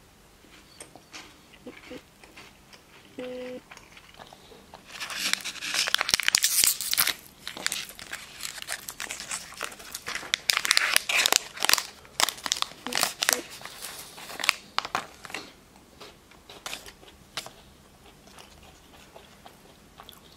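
Crinkly wrapper of a chocolate-coated wafer being handled and torn open. It comes as bursts of sharp crackling and rustling, loudest in the middle stretch and thinning out toward the end.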